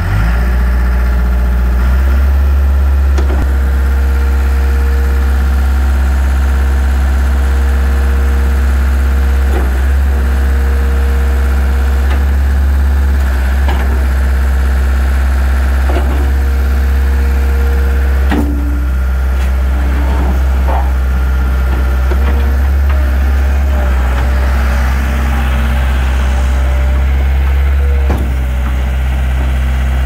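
Gehl 5635DX skid steer loader's engine running steadily just after start-up, while its loader arms lift and lower the bucket. A few short knocks and clunks sound over the engine.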